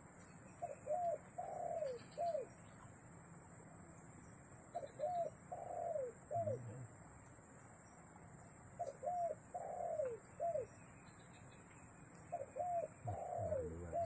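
Spotted dove (tekukur) cooing: four phrases about four seconds apart, each a short run of three or four notes.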